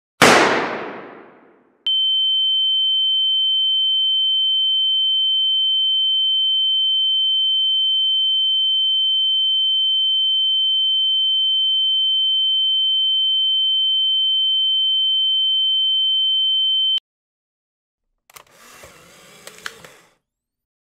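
A single loud gunshot, its echo dying away over about a second and a half, followed by a steady high-pitched pure tone, a ringing-ears effect, held for about fifteen seconds and cut off abruptly. A faint brief noise follows near the end.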